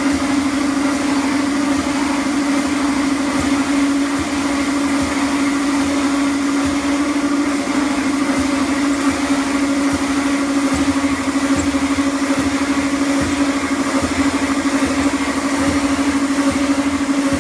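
Escalator step-cleaning machine running over the moving steps: a loud, steady motor hum at one even pitch, with a low uneven rumble beneath.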